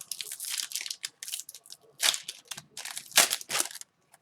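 Crinkly rustling of wrapper packaging and hockey trading cards being handled, in several short bursts.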